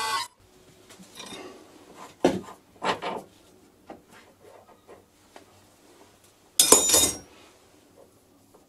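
Handling of a freshly face-milled steel workpiece on a lathe's cross-slide: a few light metallic knocks and clinks, then one short, loud metal scrape about seven seconds in. The steady running sound of the lathe and face mill cuts off abruptly at the very start.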